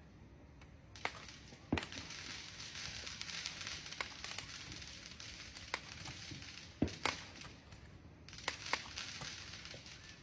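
Fireworks going off: a scattering of sharp bangs, about eight of them, with a steady high hiss behind them through most of the stretch.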